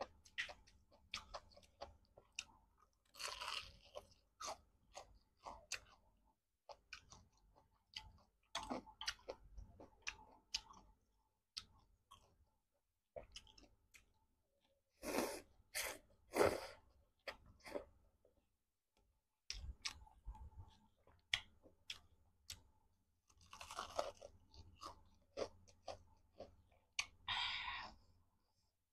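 Close-miked eating sounds: chewing of instant noodles with wet mouth clicks, and several longer noodle slurps, the loudest about halfway through.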